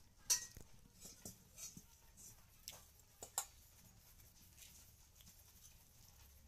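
Scattered light clicks and taps of handling. The sharpest comes about a third of a second in, and two more come close together about three and a half seconds in.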